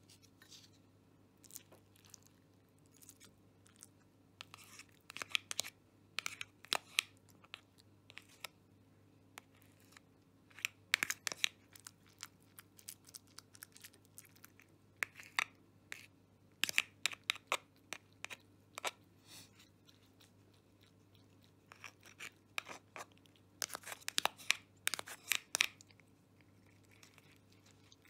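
A cat eating wet cat food from a bowl: chewing in short bursts of clicks, with quiet pauses between bursts.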